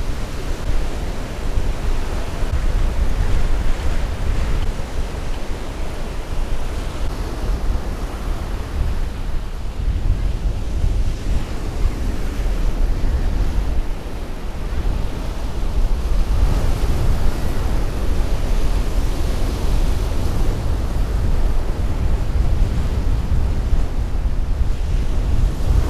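Wind buffeting the microphone with a gusty low rumble, over the steady wash of surf breaking on the beach.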